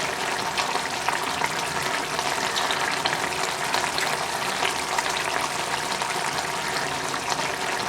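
Chicken pieces sizzling and bubbling steadily in a pan of coconut oil and their own released juices, with a fine, continuous crackle: the water drawn out of the chicken is still cooking off.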